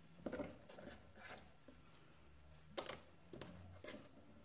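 Faint handling sounds of thin metal cutting dies and cardstock being positioned on a plastic die-cutting plate: a few light taps and rustles, the sharpest a click about three seconds in.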